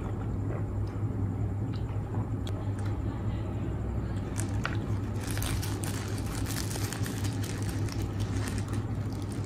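Paper wrapper of a shawarma crinkling and crackling as it is peeled back by hand, starting about halfway in and going on densely, over a steady low background hum.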